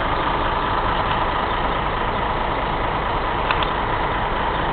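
Fire engine's diesel engine idling steadily, with the line of fire apparatus behind it idling too.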